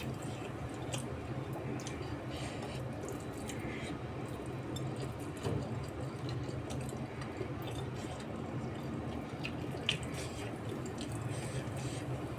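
Close-up eating sounds: small wet mouth clicks and smacks from chewing, scattered irregularly, with one sharper click near the end, over a steady low hum.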